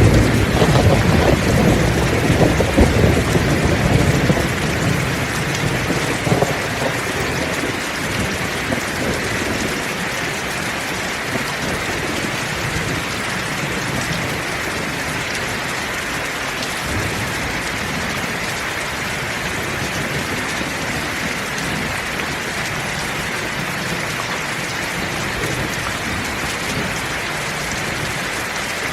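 Heavy rain falling steadily, with a roll of thunder rumbling low in the first few seconds and fading out by about seven seconds in.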